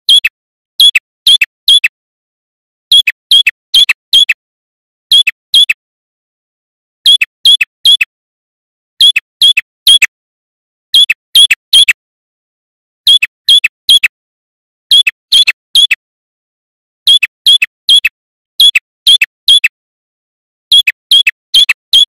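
Male ashy tailorbird singing: short, sharp, piercing notes in quick groups of three or four, one group about every two seconds.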